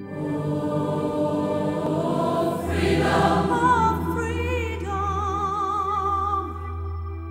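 Choral music: voices singing long held notes, joined about three seconds in by a low steady drone, with a voice singing with vibrato above them.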